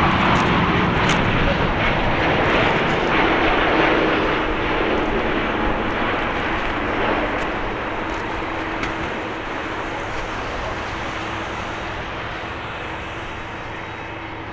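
Boeing 787-9 jet engines on landing: a broad, steady jet rumble with a faint hum underneath that fades away gradually as the airliner moves off.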